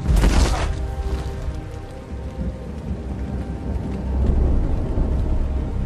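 Low, deep rumbling under dramatic background music. A sudden noisy burst opens it, and the rumble swells again about four seconds in.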